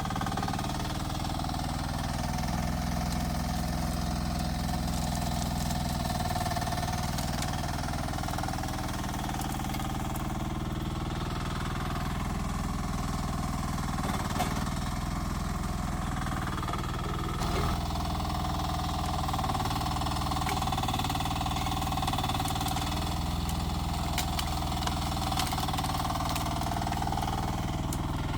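Rippa R10 mini excavator's small engine running steadily, with a few short clicks and knocks now and then.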